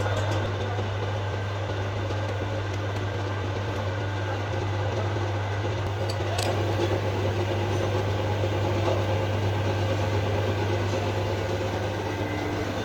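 A machine running steadily: a constant low hum under an even rushing noise, with a light click about halfway through.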